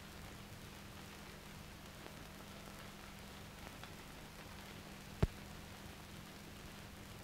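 Steady hiss with a low hum underneath, the background noise of an old analogue video transfer with no soundtrack playing. A single sharp click about five seconds in.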